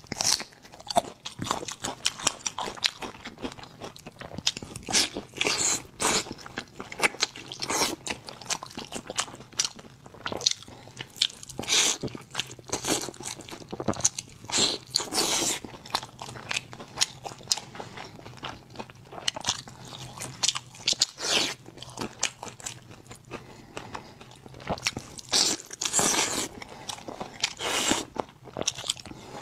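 Close-miked eating sounds of a person biting and chewing glazed meat on the bone: irregular wet smacks and sharp crunchy clicks, coming in clusters.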